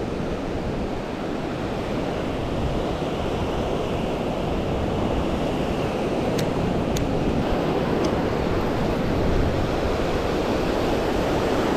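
Ocean surf breaking and washing in, with wind rumbling on the microphone. A few faint ticks sound about halfway through.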